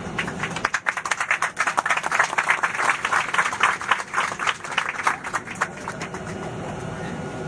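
Passengers clapping and applauding in an airliner cabin, the applause dying away about six seconds in and leaving the steady hum of the cabin.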